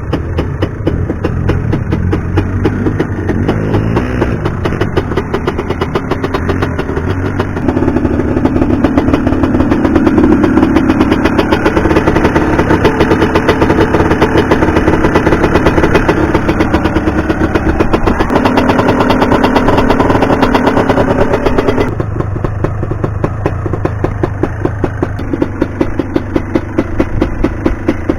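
Yamaha Banshee quad's two-stroke engine running hard, with a fast popping rhythm and revs rising and falling. It gets louder about eight seconds in and drops off abruptly a few seconds before the end.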